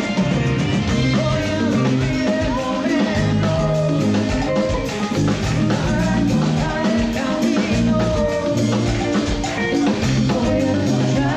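Live band playing a dance number through a club PA: vocalists singing over drums and electric guitar, with a steady beat.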